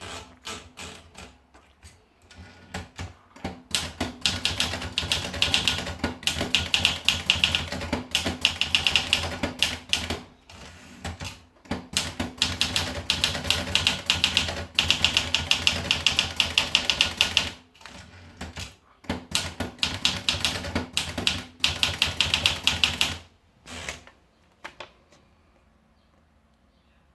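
Olivetti Lettera DL portable manual typewriter being typed on: a few scattered keystrokes, then fast runs of sharp key strikes with short pauses between them, stopping a few seconds before the end.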